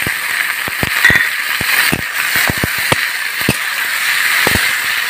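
Chopped tomato, capsicum and onion frying in oil in a steel wok on high flame with a steady sizzle. A metal spatula stirs them, clicking and scraping against the pan at irregular intervals.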